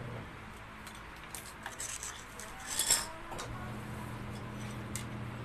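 Small metal parts and tools of a disassembled blender motor clinking and rattling as they are handled, with a short clatter about three seconds in.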